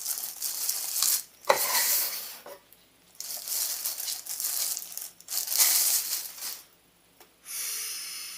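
Plastic packaging crinkling and rustling in irregular bursts as it is handled, with a sharp knock about one and a half seconds in and a steadier hiss near the end.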